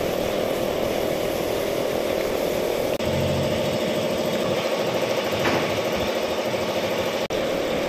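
An engine running steadily, loud and even in pitch, with a brief break near the end.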